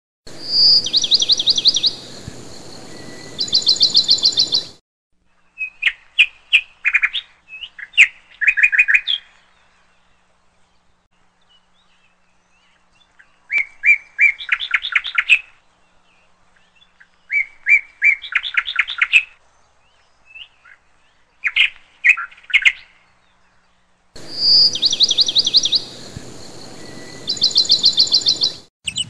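Recorded songbird calls laid over a slideshow: bursts of rapid high trills over a light hiss, then a run of short chirping phrases with pauses between them, then the first trilling passage again near the end. The sound starts and stops abruptly at the edits.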